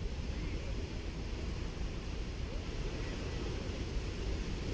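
Small waves washing steadily onto a sandy beach, with a low rumble of wind on the microphone.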